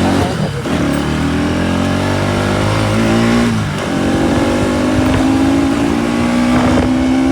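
Bajaj Pulsar NS200's single-cylinder engine accelerating under way, its pitch rising, dropping briefly for a gear change about three and a half seconds in, then rising again.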